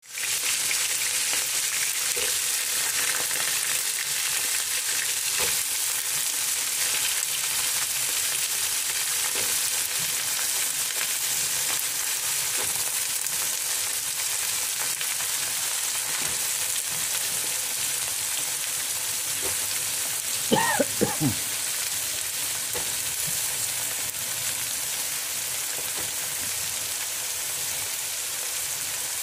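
Sliced courgettes and onions frying in oil in a large pot: a steady sizzle, with the occasional light knock of a wooden spoon stirring. About two-thirds of the way through, three short squeaky sounds stand out above the sizzle.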